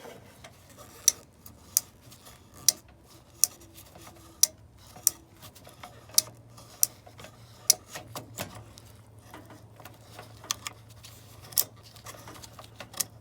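Relays on a Whirlpool dryer control board clicking as a magnet pulls their contacts shut, one sharp click at a time, about one a second, with a low steady hum coming in about halfway. The contacts are being worked to clear corrosion on a board whose dryer runs but does not heat.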